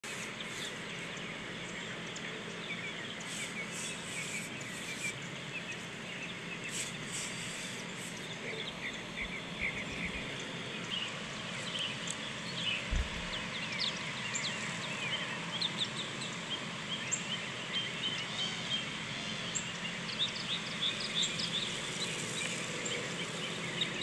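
Open-air ambience with many small birds chirping and calling over a steady background hiss; the calls become busier about a third of the way in.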